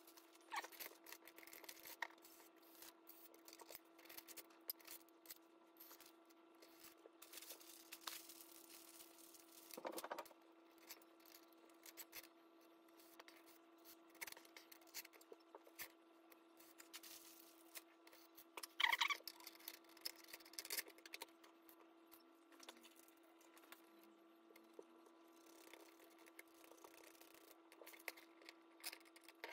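Faint, scattered clicks and clinks of small hardware being handled: nuts, washers and aluminium capacitor plates fitted onto threaded rods to build a home-made plate capacitor. There is a louder clatter about nineteen seconds in, over a faint steady hum.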